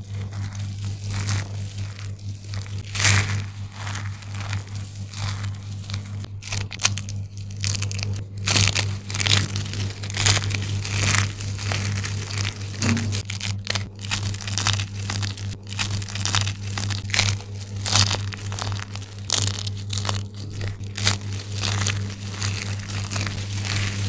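Hands squeezing and crushing handfuls of dry, brittle soap shavings and thin soap slices, giving a dense, irregular crunching and crackling. A steady low hum runs underneath.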